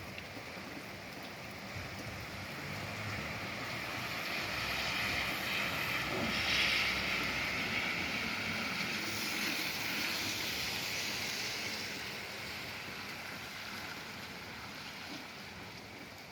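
Steady rain hiss. A louder rush swells up over several seconds, peaks about halfway through, and fades away again.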